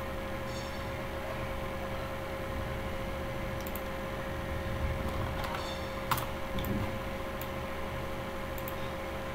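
A few faint clicks of a computer mouse and keyboard over a steady hum and hiss with a faint steady tone from the microphone.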